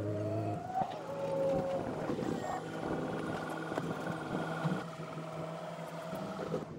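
A skiff being hauled out of the water on its trailer behind a pickup truck. An engine hums steadily and stops about half a second in. Drawn-out moaning tones rise and fall, then a steady low engine tone holds until near the end.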